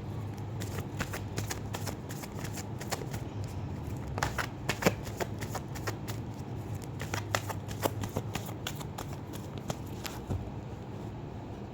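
A tarot deck being shuffled by hand: a run of quick, irregular card clicks and flicks.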